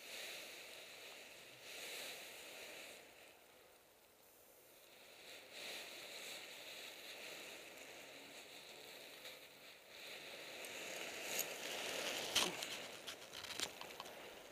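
Ripstop nylon of a paraglider wing rustling and crinkling as it is moved about on the grass, rising and falling in swells, with sharper crackles near the end.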